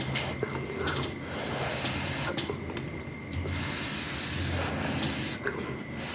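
Close-miked eating sounds of rice noodle soup: wet chewing and mouth clicks, with stretches of hissy slurping.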